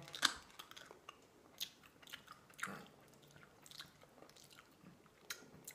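Faint chewing of jelly beans: scattered soft, wet mouth clicks and smacks.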